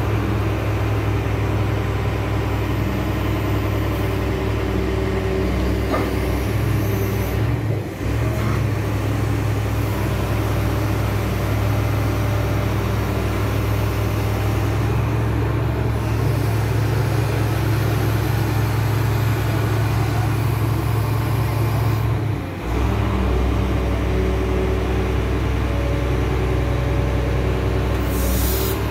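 XCMG XE370CA excavator's diesel engine running steadily with a low hum, dipping briefly twice, as the boom and bucket are worked.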